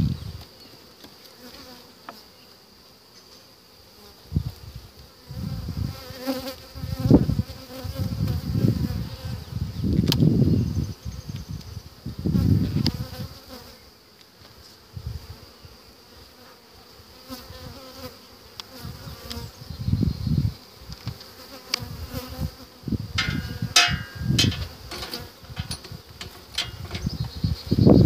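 Honeybees buzzing around an opened wooden hive, the buzz swelling and fading again and again. Scattered sharp knocks and clicks come from the hive's wooden boxes and covers being handled.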